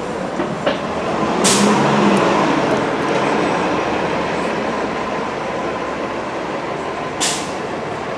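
Steady rumbling ride noise of a moving vehicle, with a short sharp hiss about a second and a half in and another near the end.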